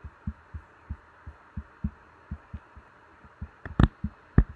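Soft low thuds, about three a second, then a few sharp clicks near the end: a computer mouse being handled and clicked on a desk.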